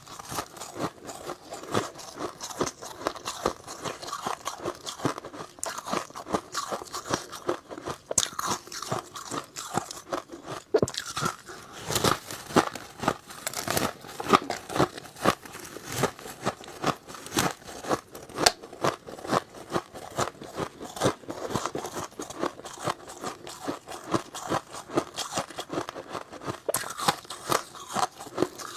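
Chewing and crunching of freezer frost (snow ice): a dense, irregular run of crisp crunches, several a second.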